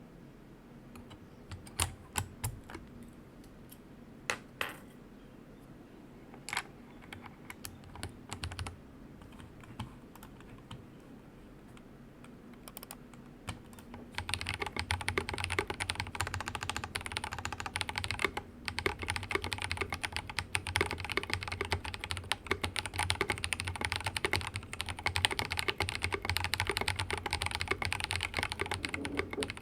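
Mechanical keyboard with tactile Holy Panda switches, a Rama Works Kara on silicone mounting, being typed on. First come a few scattered single key presses, then steady fast typing from about halfway.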